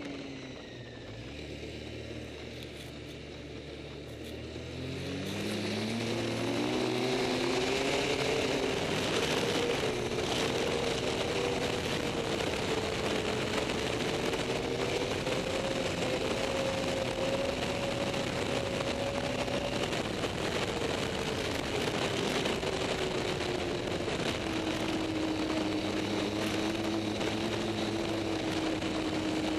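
Snowmobile engine heard from the rider's seat. It drops to a low, slow run for the first few seconds, then rises in pitch as the sled accelerates and settles into a steady cruise, easing slightly lower about two-thirds of the way through. A rushing hiss of wind grows as the speed picks up.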